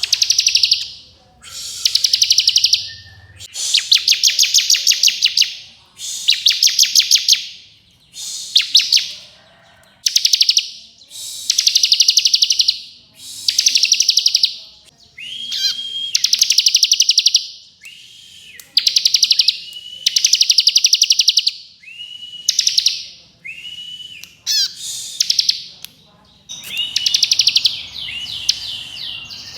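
Bar-winged prinia (ciblek kristal) singing its fast rattling 'ngebren' song: a dozen or so high, rapid trilled phrases, each about a second long, with brief pauses between. From about halfway through, several phrases open with a short level whistle.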